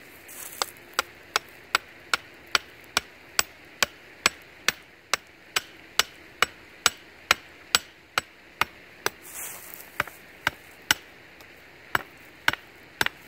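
Back of a hatchet head hammering a sharpened wooden stake into the ground: a steady run of sharp wooden knocks, about two and a half a second, with a short pause near the end before a few more blows.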